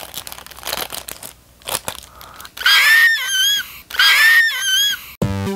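Crinkling and crackling of a small plastic doll wrapper being torn open and unwrapped. Then come two loud, high-pitched excited squeals from a young girl, each about a second long.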